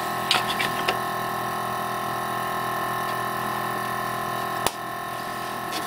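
Vacuum pump for a Hyrel vacuum bed running with a steady hum while a plastic well plate is worked onto the metal bed. A few light taps come in the first second, then a sharp click near the end, after which the hum drops a little as the plate seals down onto the vacuum.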